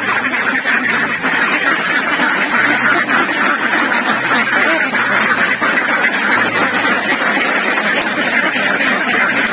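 A crowded flock of domestic laying ducks quacking continuously, many calls overlapping into a steady din.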